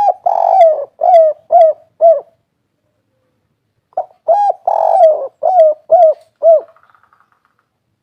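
Spotted dove (tekukur) singing its 'kuk 3' coo song twice, about four seconds apart. Each phrase is a short opening coo, a longer coo, then three short falling coos.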